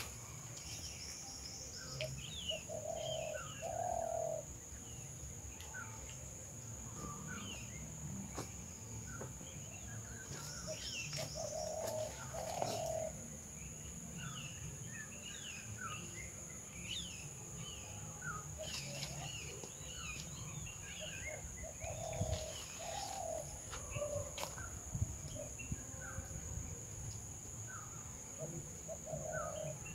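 Wild birds calling in woodland: a low two- or three-note call repeats about every nine seconds, with short high chirps from other birds scattered throughout, over a steady high hiss.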